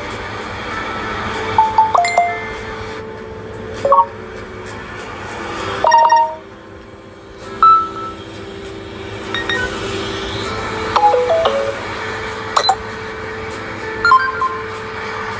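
Samsung Galaxy A55 ringtone playing: short bell-like chime notes every second or two over long held low tones that shift pitch a few times.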